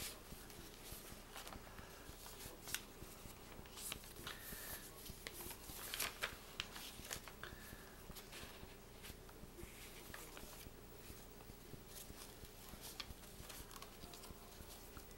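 Paper pages of a handmade junk journal being turned and handled, giving faint, irregular rustles and soft crinkles.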